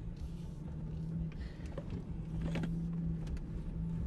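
Jeep Wrangler driving along a dirt trail, heard from inside the cab: a steady engine drone over a low rumble, with a few light knocks and rattles.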